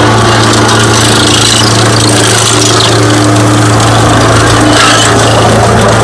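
Road roller's diesel engine running steadily and loud at close range, a constant low drone, as its steel drum rolls over a row of motorcycle exhaust silencers.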